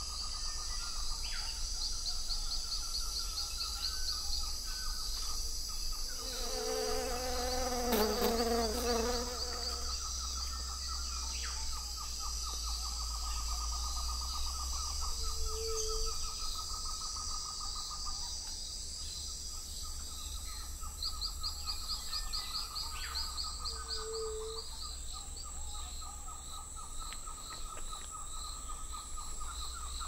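Tropical rainforest ambience at daybreak: steady high insect buzzing and trilling, with a short low call repeating about every eight seconds. A bird calls louder for a few seconds from about six seconds in.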